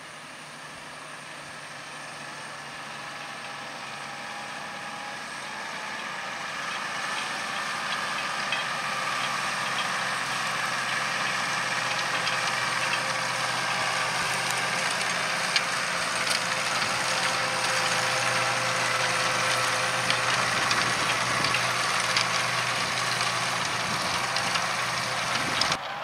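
Case IH Puma 240 CVX tractor running under load as it pulls a Kuhn seven-furrow reversible plough, its engine growing steadily louder as it draws near. A few sharp clicks and clanks come through, mostly in the second half.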